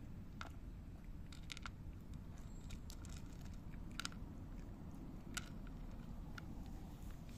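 Two tabby cats eating dry kibble from a dish: scattered crisp crunches every second or so over a low steady background rumble.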